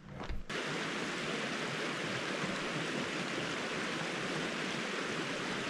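Mountain stream rushing over rocks: a steady, even rush of water that starts abruptly about half a second in.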